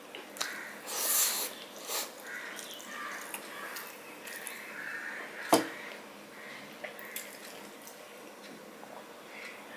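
Close-miked mouth sounds of a man eating rice and curry with his fingers: chewing, wet smacks and breaths, with a hissing breath about a second in and a sharp click about five and a half seconds in. Near the end he sips from a glass.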